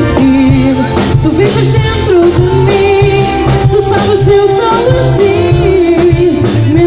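Live band playing loudly, a woman singing a held, gliding melody over a drum kit keeping a steady beat.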